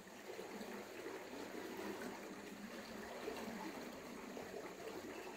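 Faint, steady trickle of river water.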